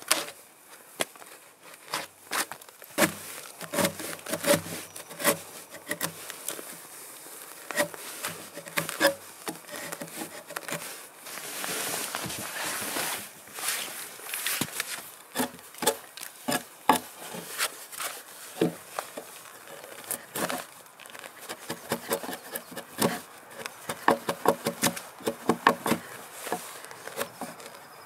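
Hand axe and chisel cutting a dovetail notch in a log: irregular sharp chops and knocks with wood scraping between them. A few seconds of steady rubbing hiss come near the middle, and the strikes come in a quicker run near the end.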